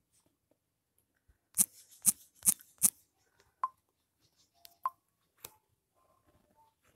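Four sharp clicks about half a second apart, then a few fainter short clicks and blips: key taps on a smartphone's on-screen number keypad as a four-digit passcode is entered.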